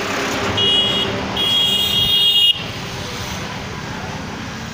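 A vehicle horn gives a short toot and then a longer one of about a second that cuts off sharply, over steady street traffic noise.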